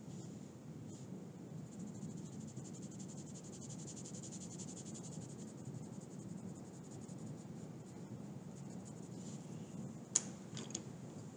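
Coloured pencil scratching on paper in quick, short shading strokes over a steady low hum. About ten seconds in, one sharp click and two lighter ones.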